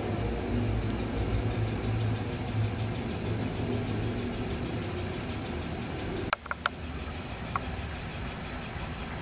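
Steady low machine hum, with a few sharp clicks about six seconds in, after which the hum is weaker.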